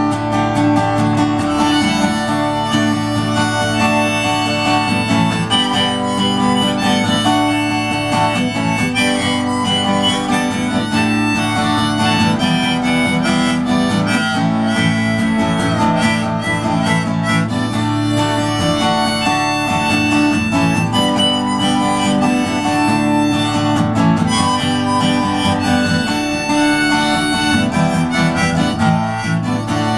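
Harmonica solo over a strummed acoustic guitar: an instrumental break between sung verses of a folk song, the harmonica played from a neck rack while the same player strums.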